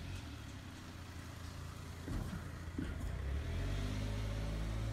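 A motor vehicle's engine running nearby, growing louder about three seconds in and then settling into a steady idle.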